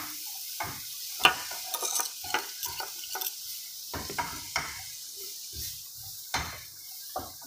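Wooden spatula stirring and scraping a nut mixture in a frying pan over a gas flame, knocking against the pan at irregular intervals, with a steady faint hiss behind it. The sharpest knock comes about a second in.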